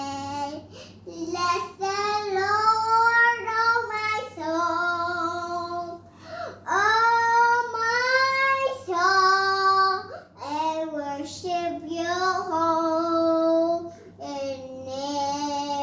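A young child singing, holding high notes for a second or two each and stepping between pitches, with short breaks between phrases.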